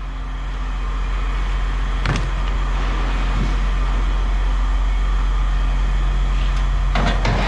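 Motor vehicle engine idling with a steady low hum, with a single knock about two seconds in and a short metallic clatter near the end.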